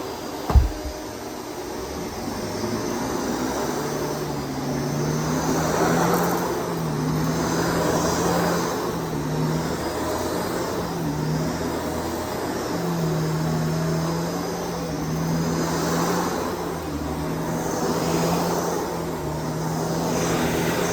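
Shark DuoClean PowerFins vacuum cleaner running steadily while it vacuums a room: a motor hum with a rushing of air that swells and falls every couple of seconds. A single sharp thump about half a second in.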